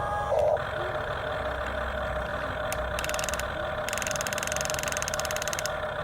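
Steady engine-like hum, with a high buzzing layer joining it for a couple of seconds near the end.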